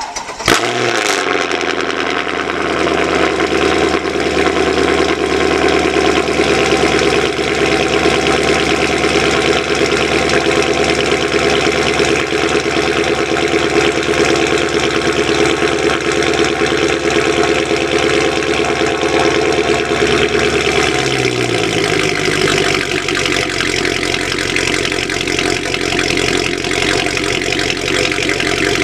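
Mercedes-Benz W204 C63 AMG's 6.2-litre V8 starting cold, heard at its exhaust tips. A short crank, the revs flaring as it catches, then a steady fast idle that settles to a lower idle about 21 seconds in.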